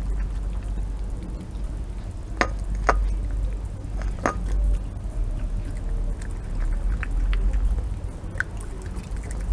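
Red fox cub eating wet food from a ceramic plate close by: wet chewing and lapping, with three sharp clicks between about two and a half and four and a half seconds in. A steady low rumble runs underneath.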